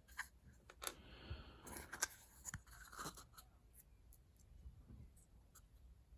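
Faint handling noises from small cut opal pieces being turned in the fingers: a few light clicks and some scratchy rubbing in the first three seconds, then near quiet.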